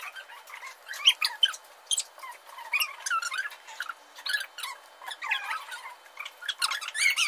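High-pitched, squeaky chatter in short chirps about every half second, thin with no low end, like voices sped up to chipmunk pitch.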